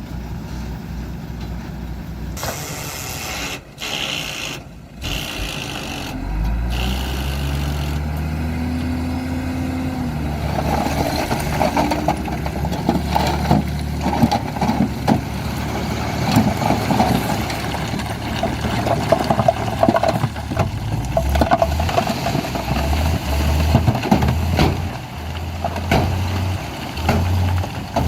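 Heavy dump truck diesel engines running. About six seconds in, an engine revs up in rising steps, then keeps running rough and loud with a steady low drone.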